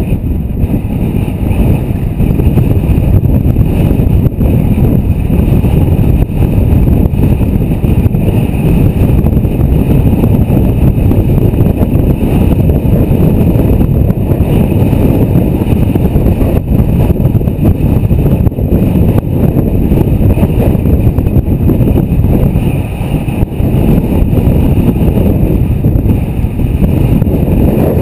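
Wind buffeting the microphone of a moving bicycle rider: a loud, steady rumble.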